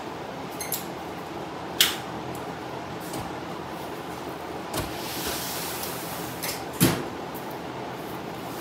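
Large drum fan running with a steady rush of air. Two sharp clicks cut through it, about two seconds and about seven seconds in, with a softer knock just before five seconds.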